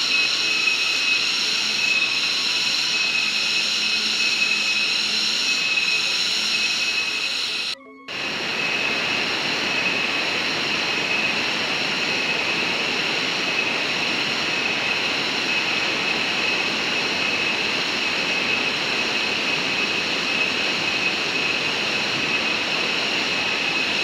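Steady rush of a waterfall-fed mountain stream tumbling over rocks, with a high steady buzz over it. The sound breaks off for a moment about eight seconds in.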